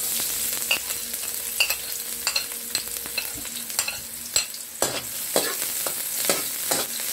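Diced red onion sizzling in hot cooking oil in an aluminium wok. The sizzle starts suddenly as the onion goes in, and a metal spatula clicks and scrapes against the wok as the onion is stirred.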